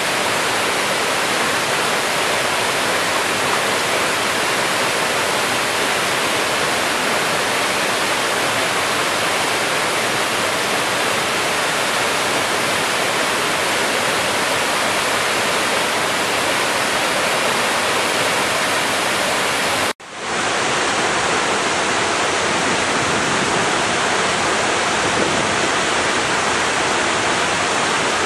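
Waterfall: water pouring over rock and crashing into the pool below, a loud, steady rush. About twenty seconds in it drops out for an instant and comes back slightly duller.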